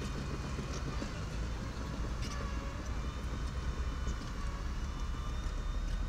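Diesel engine of a miniature bulldozer running steadily while it works stone, with a deep rumble and a thin high whine, and a couple of faint clanks.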